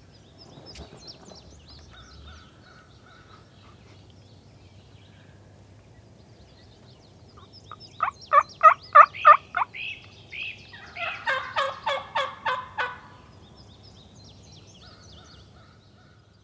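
Wild turkey toms gobbling: two gobbles about three seconds apart, each a quick rattling run of notes, over faint songbird chirps.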